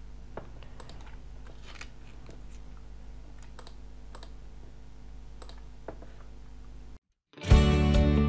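Scattered computer mouse clicks and keyboard keystrokes over a low steady hum. About seven seconds in, the sound cuts out, and acoustic guitar music starts loudly.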